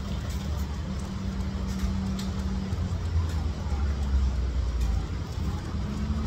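Steady low mechanical rumble with a constant hum, strongest in the bass, running without a break.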